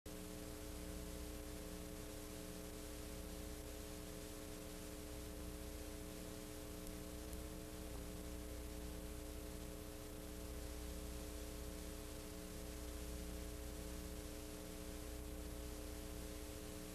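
Faint steady hiss with a low electrical hum underneath.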